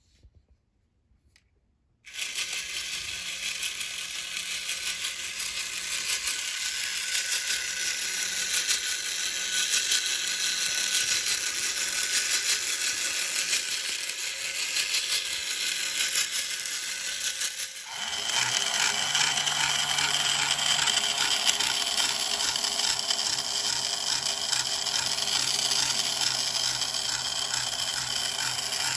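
Tin toy robot's motor-driven walking mechanism running after a repair, a continuous dense rattling clatter of tin gears and linkages that starts abruptly about two seconds in. About 18 seconds in it gives way to a different, steadier mechanical whir with a low hum, a tin toy car's motor and gearbox running.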